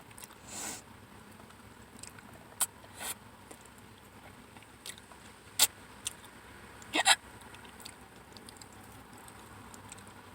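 A person hiccupping between bites of food: a few short, sharp hiccups spread through several seconds of quiet, the last two in quick succession, with a soft breath near the start.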